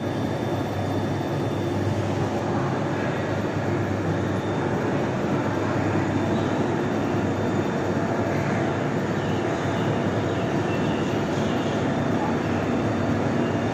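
Steady heavy industrial machinery noise: a continuous rumble with a low hum underneath, even in level throughout.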